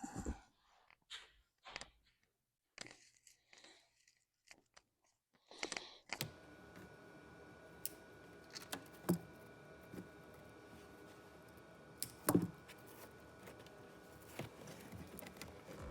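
Hands working on wiring and parts inside a truck, with scattered small clicks and rustles. About six seconds in, a steady low hum starts, and a few sharp knocks come over it.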